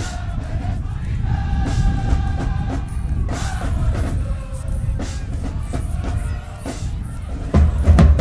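HBCU marching band playing: the horns hold long chords over steady drumming, and the drums grow louder near the end.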